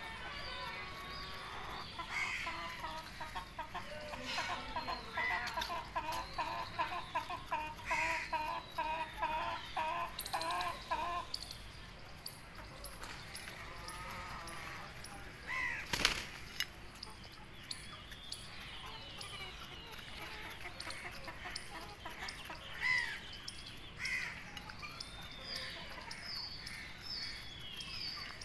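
Young chickens clucking and calling while they peck feed from a bowl, with a fast run of repeated calls in the first half. A single sharp tap about halfway through is the loudest sound.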